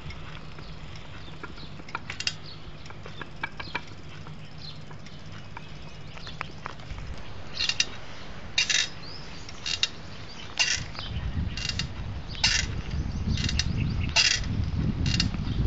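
Short, high squeaks from something mechanical, repeating about once a second from the middle on and coming slightly faster near the end. Beneath them is a low rumble of movement that grows louder over the last few seconds.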